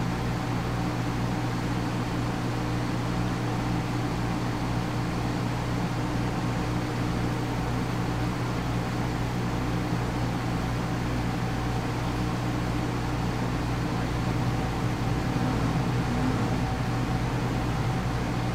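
Aquarium pump humming steadily, with a few fixed low tones over a constant hiss and a faint low throb pulsing a few times a second.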